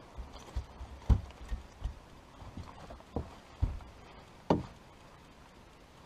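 Irregular hollow knocks and thumps on a bass boat's deck as a landing net holding a freshly caught bass is set down and the fish flops in it; about nine knocks, the loudest a little over a second in.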